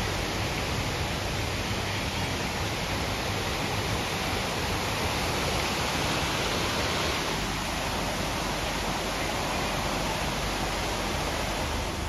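Mountain creek rushing over boulders and small cascades: a steady, even rush of water.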